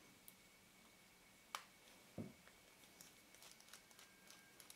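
Faint clicks and light taps of small tools against metal lens parts during disassembly, over near silence. There is a sharp click about a second and a half in, a dull knock just after it, then a scatter of small ticks.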